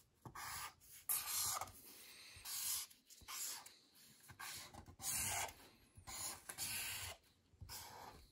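Felt-tip permanent marker drawn across a sheet of paper: about ten separate strokes, each a brief rubbing sound, as straight lines are drawn one after another.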